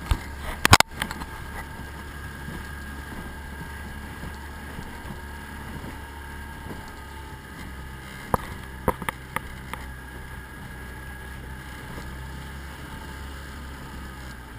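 Outboard motor running steadily as a small aluminum skiff travels across choppy water. Sharp knocks of the aluminum hull on the waves come at the start and again in a short cluster about eight to nine seconds in.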